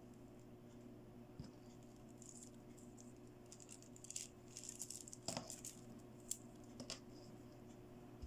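Plastic beads of children's charm bracelets softly clicking and rattling against each other as they are handled, in scattered bursts with a few sharper ticks in the second half.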